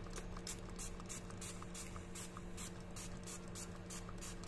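PCB cleaner sprayed onto a hot circuit board, heard as faint, irregular short hisses several times a second as the solvent lands and flashes off the hot board. A steady low hum runs underneath.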